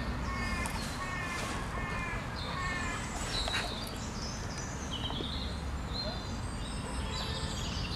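Birds calling: a run of short repeated calls in the first three seconds, then scattered higher chirps and whistles, over a steady low background rumble.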